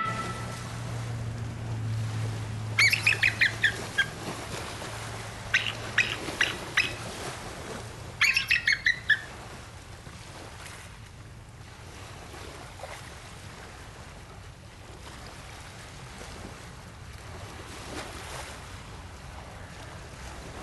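Bald eagle calling: three bursts of rapid high chirping notes, the last burst falling in pitch, over a steady hiss of outdoor background, with a low hum during the first few seconds.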